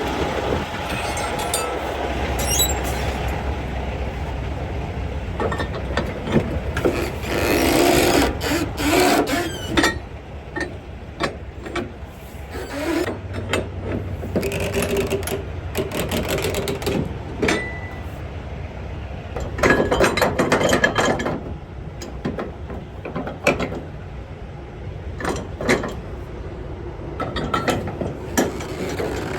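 Flatbed load-securing gear being worked: metal clanks and clicks, with two stretches of rapid ratcheting about a third of the way in and again past the middle, over a low steady rumble.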